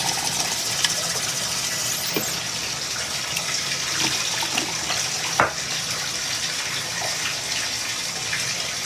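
Bath tap running, water pouring steadily into a filling bathtub, with a single knock about five seconds in.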